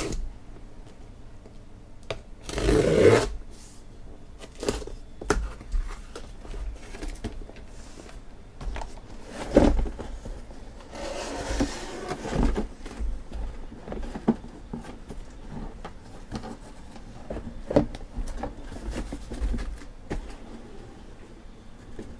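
Knife cutting the packing tape on a cardboard shipping case, with two longer cutting or tearing sweeps about 3 seconds and 11 seconds in. Cardboard flaps scrape, and boxes inside are knocked and shifted as they are lifted out.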